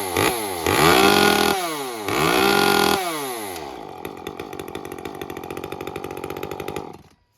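Two-stroke Echo CS-355 chainsaw engine revved in quick throttle blips, then held twice at full throttle for about a second each. It then falls back to a steady idle and is shut off suddenly near the end. The saw is being tuned after a muffler and timing modification, and the owner judges it could still run a little leaner at the top end.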